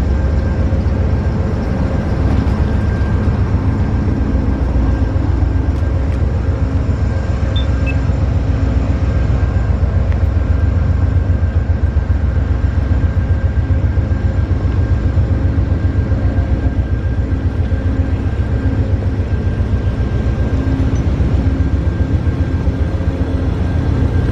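Diesel locomotive idling: a steady, loud low rumble with a constant hum over it.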